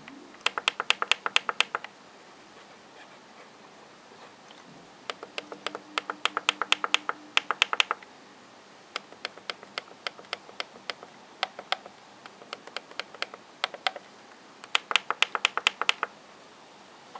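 MSI CX640 laptop's touchpad button bar being pressed repeatedly by a finger: sharp plastic clicks in several quick runs, the fastest about eight clicks a second, with short pauses between runs.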